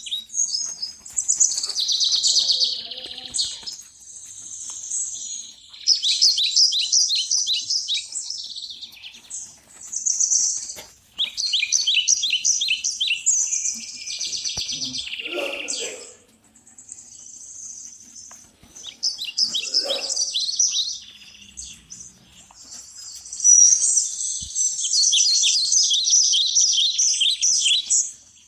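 Forest birdsong: high-pitched chirps and rapid trills coming in bouts of a few seconds, with short pauses between.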